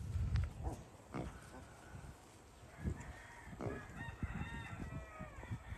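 A rooster crows once for about two seconds in the second half. Earlier there are a few short, low grunts from the pot-bellied pigs.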